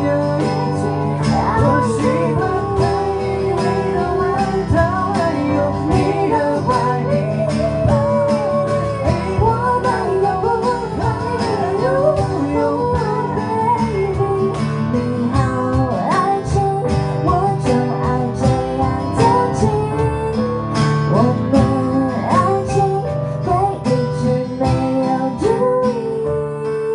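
A small acoustic band playing live: a woman singing lead over acoustic guitar and a steady cajon beat, with other voices singing backing.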